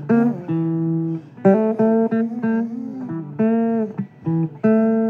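Blues played on acoustic guitar: a string of short held notes, a few of them bent in pitch.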